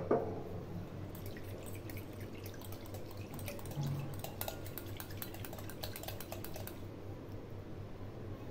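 Wire whisk beating yogurt thinned with a little water in a glass bowl: quick light clicks of the wires against the glass with a wet slosh, stopping about a second and a half before the end. A single sharp clink right at the start.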